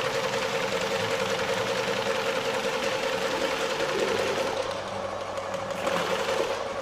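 Transfer pump running with a steady hum as liquid is pumped through a Dura-Meter flow meter and nozzle into a 5-gallon jug, the hiss of the flow thinning a little about four and a half seconds in.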